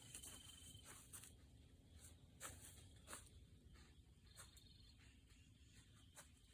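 Near silence: faint outdoor ambience with a few soft, brief clicks, and a faint thin high tone at the start and again about four and a half seconds in.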